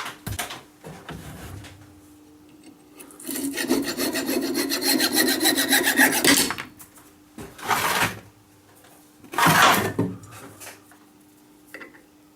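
A file rasping against the metal workpiece on the lathe: one continuous rasp of about three seconds, then two short strokes a couple of seconds apart. A faint steady hum runs underneath.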